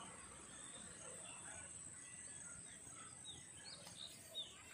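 Faint open-air field ambience: a few short, high bird chirps about three seconds in, over a steady faint high hiss, with one brief sharp tap near the end.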